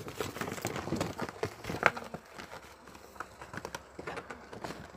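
A paper bag being handled: a run of short rustles and light taps, thickest in the first two seconds, with one sharper click about two seconds in.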